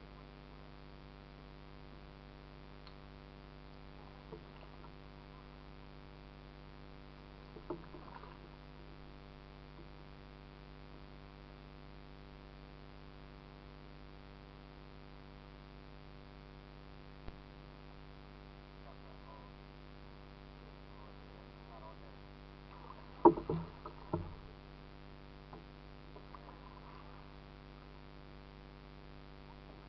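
Kayak paddling on a slow creek: quiet paddle and water sounds under a steady low hum, broken by a few sharp knocks, the loudest a quick cluster of knocks about 23 seconds in.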